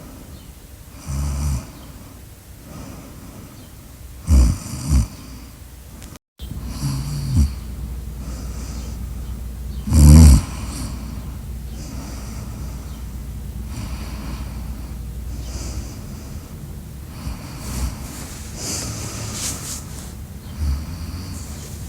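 A sleeping person snoring in irregular, uneven snores. The loudest, a deep snort about ten seconds in, follows several shorter ones and gives way to quieter breathy snores near the end.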